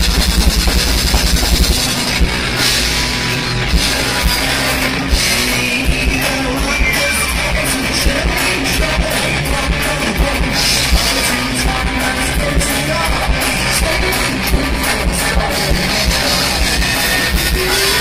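Live progressive rock band playing loud, with electric guitars and a drum kit, recorded through a phone's microphone with poor, distorted sound quality.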